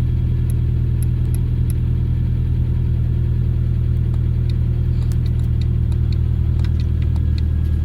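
Freshly rebuilt Toyota 22RE 2.4-litre four-cylinder engine idling steadily.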